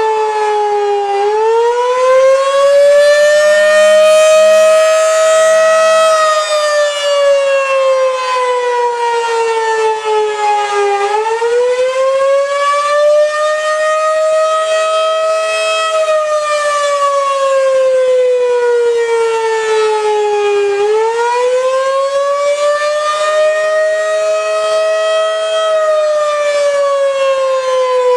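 Federal Signal outdoor warning siren sounding the wailing attack signal: one loud tone with many overtones that climbs quickly from its low point, keeps rising more slowly, then sinks back down, repeating about every ten seconds.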